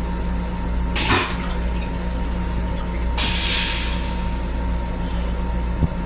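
Steady low hum of an M7 railcar heard from inside its restroom, with a faint steady whine above it. Two short bursts of hiss come about a second and about three seconds in, and a light knock near the end.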